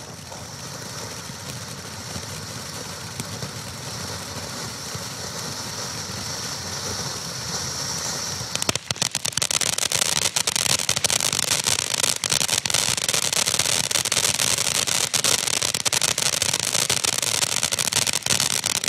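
Black Cat 'Big Cat' ground fountain firework spraying sparks with a steady hiss. About nine seconds in, it turns to a louder, dense crackling.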